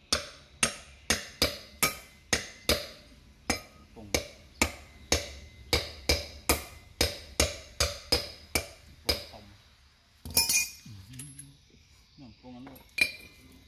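Hammer tapping on metal, about two sharp ringing strikes a second for some nine seconds, then stopping; a short clatter follows.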